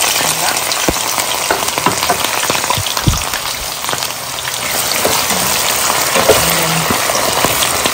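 Sliced onions sizzling in hot oil just after going into the pot, a steady hiss with scattered crackles and pops, while a spatula stirs them.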